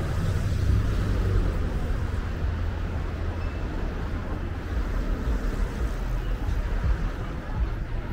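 City street traffic: a steady low rumble of cars driving past.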